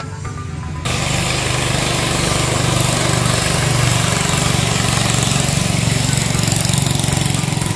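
Background music cuts off about a second in, giving way to the loud, steady running of a klotok (katinting) river boat's outboard engine as the boat speeds past at full throttle, throwing up spray.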